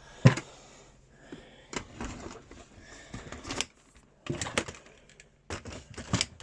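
Handling noise: a string of irregular knocks and clicks with faint rustling between them, and no motor running.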